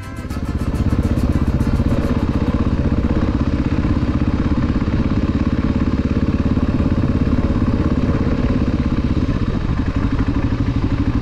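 Dual-sport motorcycle engine running steadily at low revs as the bike rolls slowly, its firing pulses close to the mic and even throughout.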